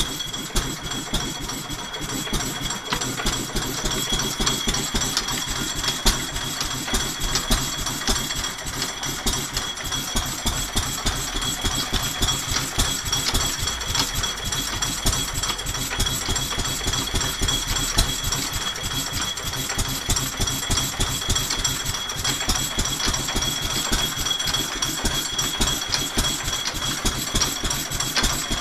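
Fortuna belt-driven power hacksaw running, its flat belt turning the pulley and working the saw, a steady mechanical clatter of rapid, even knocks.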